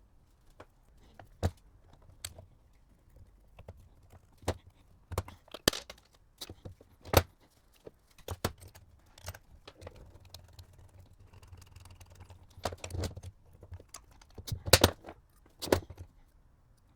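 Irregular sharp clicks and knocks of metal parts and hand tools being handled during work on a car starter, with a dozen or so separate hits and the loudest cluster near the end.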